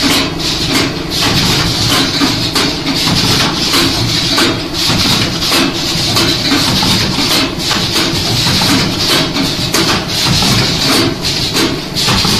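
Alcohol wet-wipe making and packing machine running: a steady mechanical hum and hiss with repeated clacks from its moving parts a few times a second.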